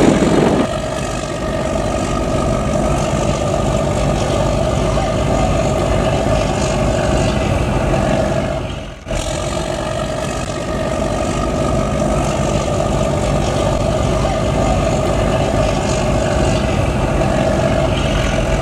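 Fishing boat's inboard marine diesel engine running steadily under way, a constant drone with a steady hum, as the boat manoeuvres after launching. The sound dips out briefly about halfway through.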